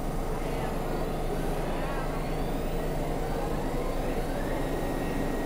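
Steady low hum and rumble of a New York City subway train standing at an underground station platform, with faint rising electric whines a couple of seconds in.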